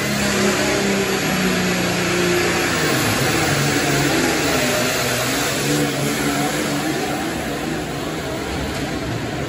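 Modified pulling tractor running at full power, loud and continuous, its engine pitch wavering as it drags the weight-transfer sled down the dirt track.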